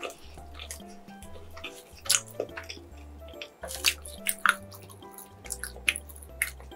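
Thick slice of cheese-topped bread torn apart by hand, close-miked, with a scatter of sharp crackles and wet clicks over background music.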